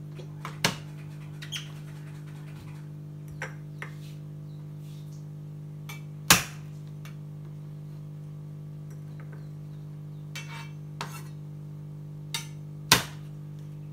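Kitchen knife knocking on a cutting board as bird's eye chilies are smashed with the flat of the blade and chopped: scattered sharp knocks, the loudest near the start, in the middle and near the end, over a steady low hum.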